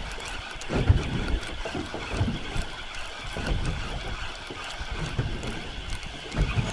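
Wind on the microphone and water around a small open fishing boat, with a steady hiss and a few irregular low bumps.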